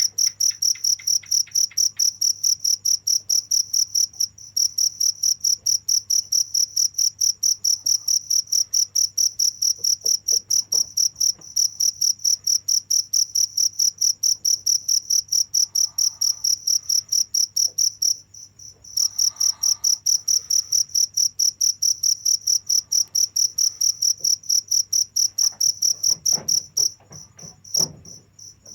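A cricket chirping: one high-pitched tone pulsed in a fast, steady rhythm of several chirps a second. It breaks off briefly a few times, longest a little past the middle and again near the end. A faint low hum runs underneath.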